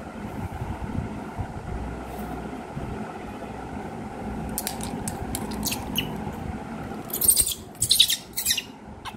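A baby macaque giving three short, harsh squawks in quick succession near the end, after a few faint scratchy sounds as it is handled.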